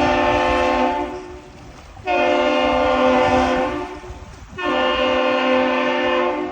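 A deep horn sounding three long, steady blasts of nearly two seconds each. The first is already sounding and stops about a second in, and the next two follow after short gaps.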